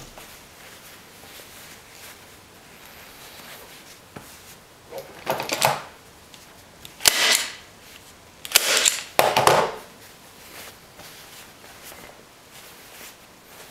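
Staple gun firing staples through upholstery fabric into a seat base: four sharp mechanical clacks between about five and ten seconds in, with fabric rustling around them.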